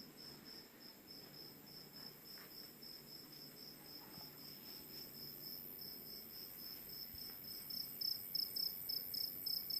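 A cricket chirping in a steady, even pulse of about five high chirps a second, growing louder in the last couple of seconds. A faint low rush lies underneath.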